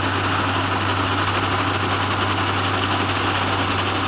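WORX 15-amp corded electric chainsaw running steadily at speed, its motor and chain giving a loud, even whine and buzz.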